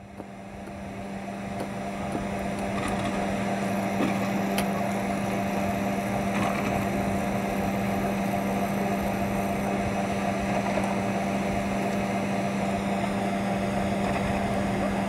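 Surface ski lift running: a steady, even mechanical hum from the lift machinery with a few faint clicks, fading in over the first couple of seconds.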